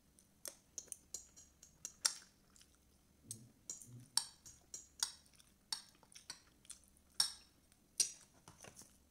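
Spoon and fork clinking and scraping on a plate during a meal, with irregular sharp clicks, roughly two or three a second, mixed with chewing.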